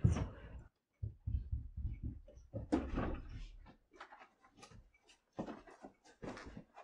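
Irregular thumps, knocks and scuffles of people hurrying down stairs and across a carpeted room.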